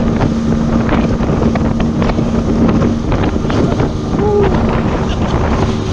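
Small motorboat running at speed, with wind buffeting the microphone and water splashing against the hull. A steady engine tone fades out about halfway through.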